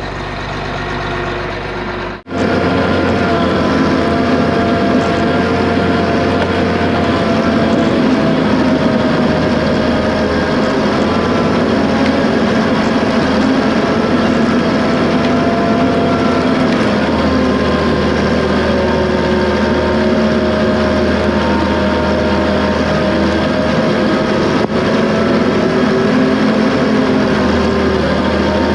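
John Deere 850 bulldozer's diesel engine running steadily under load, its pitch shifting a little, with a sudden brief break about two seconds in.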